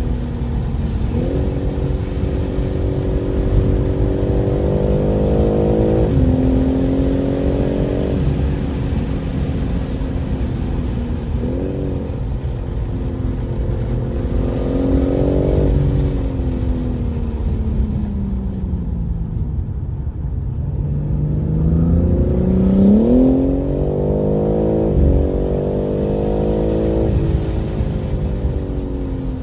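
BMW M3 Competition's twin-turbo inline-six driven hard on track. The engine pitch climbs and drops sharply at each upshift, falls away steadily under braking a little past halfway, then climbs again through several quick upshifts.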